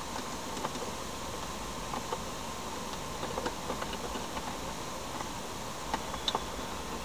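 Faint plastic clicks from a Honda Accord's overhead map-light push-button switches, pressed on and off several times over a steady hiss.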